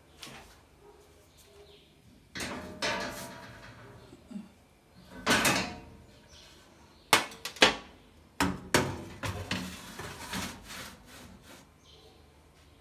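Kitchen handling noises: a series of knocks, clatters and scrapes from cookware and utensils, with a longer scrape about five seconds in and the sharpest knocks at about seven and seven and a half seconds.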